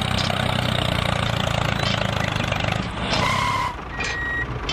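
Tractor engine running steadily. About three seconds in it drops away and electronic beeping starts, first a two-tone beep and then a repeated single high beep, like a reversing alarm.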